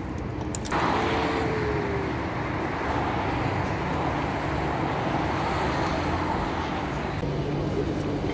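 Steady road traffic noise, an even rush of passing vehicles that starts abruptly under a second in and holds at a constant level.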